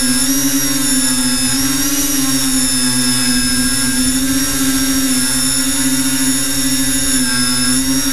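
Electric motors and propellers of an FPV multirotor running steadily, heard from its onboard camera. Their whine dips and rises in pitch a few times with throttle changes.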